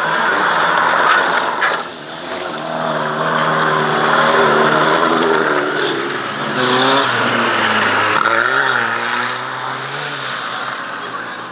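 Old cars racing past on a loose dirt track, engines revving hard, their pitch climbing and dropping several times.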